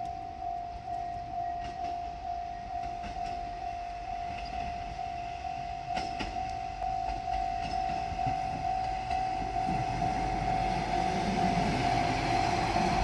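Japanese level-crossing warning bell ringing steadily. A diesel railcar approaches, its rumble growing louder over the last few seconds.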